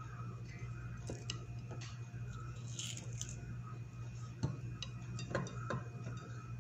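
Scattered light clicks and taps from hands arranging cut watermelon pieces on a plate, the sharpest a little past the middle, over a steady low hum.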